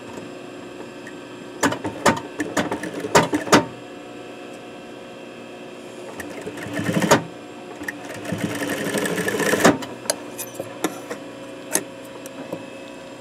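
Juki industrial sewing machine stitching in short bursts, the longest about a second and a half near the end, amid clicks and knocks of the fabric and machine being handled, over a steady hum.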